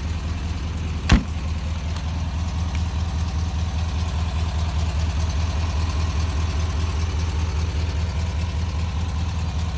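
1967 VW Bus's air-cooled flat-four engine idling steadily with an even low pulse. A single sharp knock about a second in.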